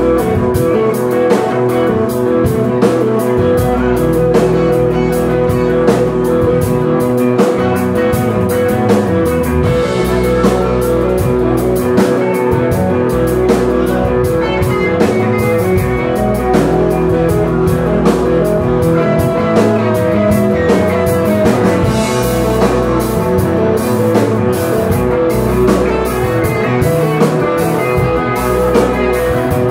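Live rock band playing: electric guitars over a drum kit and bass guitar, with a steady beat.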